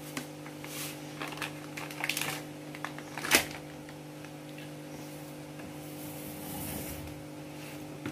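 A plastic packet rustling and small clicks and taps against a steel mixing bowl as dry ingredients are poured into flour, with one sharp tap about three and a half seconds in.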